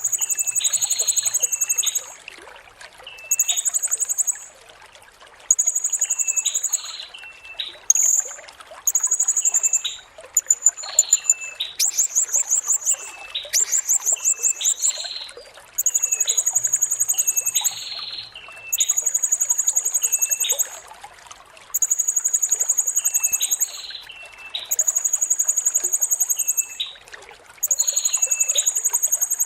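Blue-crowned hanging parrot (serindit) calling: a long series of very high, shrill buzzing trills, each about one to two seconds long, repeated with short gaps, with a fast stuttering run of notes near the middle.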